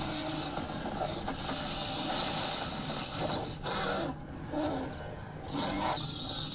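Soundtrack of a film playing on a screen: a dense, steady rumble like engines or aircraft, with shifting tones and a brief dip about four seconds in.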